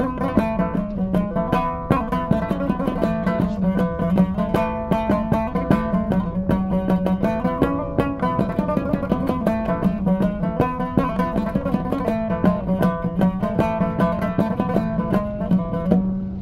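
Instrumental background music: a rapidly plucked string instrument playing a busy melody over a steady low drone.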